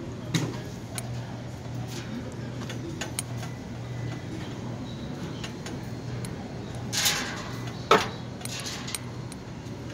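Wet clothes being pulled out of a front-loading laundromat washer: scattered clicks and knocks against the metal drum, a rustle about seven seconds in and a sharper knock just after. Underneath, the laundromat's machines keep up a steady low hum.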